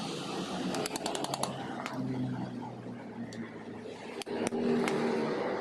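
Light metallic clicks and taps from hand tools and transmission parts being handled, with a quick run of clicks about a second in and single clicks scattered after it. A steady low hum runs underneath.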